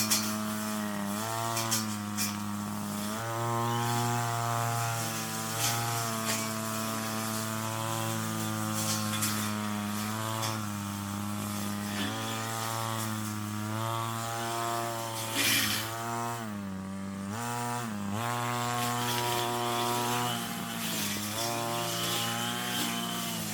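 Brush cutter engine running at high speed, its pitch dipping briefly every few seconds as the blade takes the load of cutting weeds, with a deeper dip and recovery about two-thirds of the way through. A few sharp ticks sound over it.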